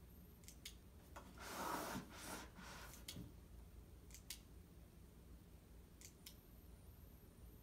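Near silence, broken by a brief rubbing scrape about one and a half seconds in as a mini LED light bar on its magnet-mount base is turned by hand on a tabletop. A few faint scattered clicks come with it.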